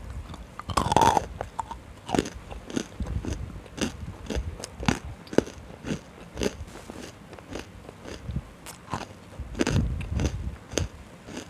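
Biting and crunching hard, dry-roasted chunks close to a microphone: a loud bite about a second in, then a string of irregular crisp crunches as they are chewed, with another loud cluster near the end.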